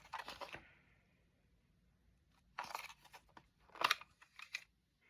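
Faint handling of a cassette tape and its packaging: two short clusters of clicking and crinkling, about halfway through and near the end.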